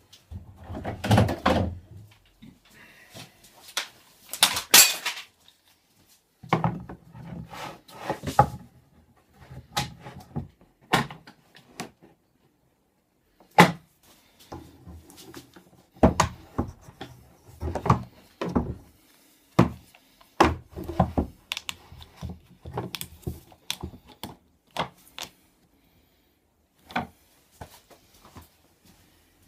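Workshop handling noises: irregular knocks, thuds and clatter of wooden boards and a large bar clamp being moved and set down, with two longer scraping noises in the first few seconds. Near the end the bar clamp knocks against the board as it is fitted to the board's end.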